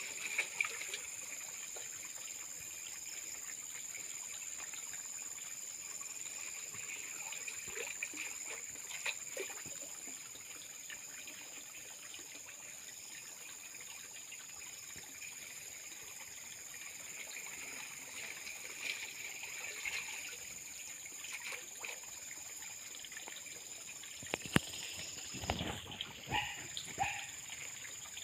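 Muddy pond water sloshing and trickling around a man wading and groping for fish by hand, with a cluster of louder splashes near the end.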